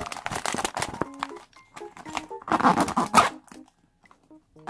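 Crinkling and rustling of a stiff clear plastic pouch being handled, with a louder burst of rustling about two and a half seconds in.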